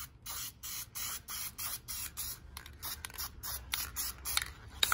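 Aerosol can of Dupli-Color aluminum engine enamel spraying in short hissing bursts, about two or three a second.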